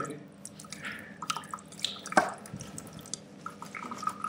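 Thin stream of water from a lab tap trickling over a gloved hand and dripping and splashing into a stainless-steel sink, with one sharper knock about two seconds in.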